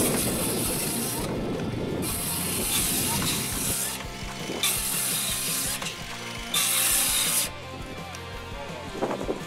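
RIDGID Gen5X R8652 cordless circular saw, a brushed-motor 7-1/4 inch saw, running through 2x4s in quick repeated crosscuts: four short runs of the saw with brief pauses between.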